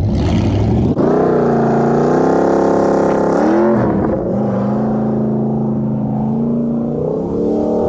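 Car engine accelerating hard. The revs climb sharply about a second in, rise and then fall away briefly near four seconds, hold steady, and start climbing again near the end.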